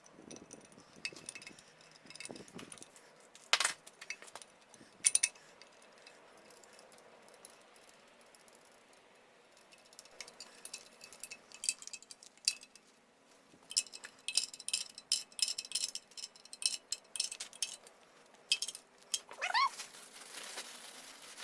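Scattered metallic clicks and clinks of hand tools and bolts while a generator is fitted to a 1969 Triumph Spitfire engine, with a quick run of clicks a little past the middle. Near the end comes a short rising pitched cry.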